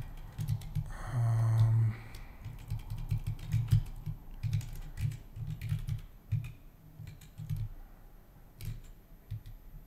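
Typing on a computer keyboard in irregular runs of key clicks that thin out toward the end. About a second in, a short hummed 'mm' from the typist, falling slightly in pitch.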